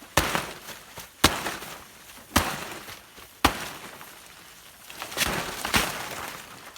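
Six sharp knocks or blows, about one a second, with a pause of over a second before the last two, which come close together.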